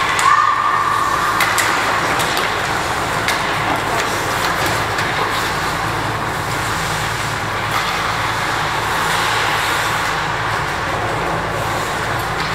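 Ice hockey play on a rink: a steady scraping hiss of skates on the ice, with scattered sharp clacks of sticks and puck.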